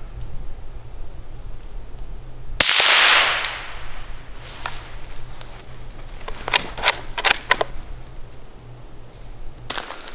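A single rimfire rifle shot at a western gray squirrel: a sharp crack about two and a half seconds in, with an echo trailing off over about a second. A few seconds later comes a quick cluster of sharp clicks.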